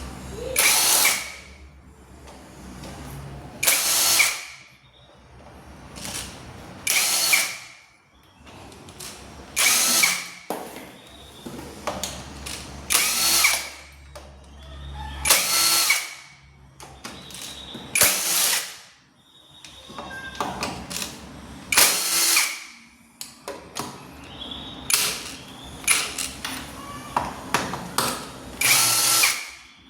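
Handheld power drill-driver run in short bursts, about a dozen spins a few seconds apart, as it backs out the bolts of a scooter's CVT cover one after another.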